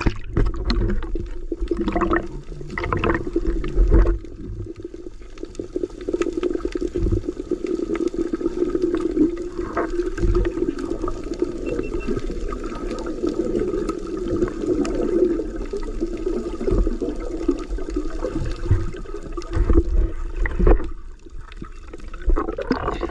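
Muffled underwater sound from a submerged camera: water rushing and bubbling, with a steady low hum through most of it and a few dull thumps.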